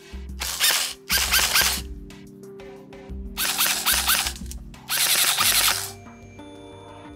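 Airsoft electric rifle (HK416 A5 AEG) firing four short bursts, each under a second. The action has a pronounced spring noise, which the reviewer puts down to a badly seated spring guide.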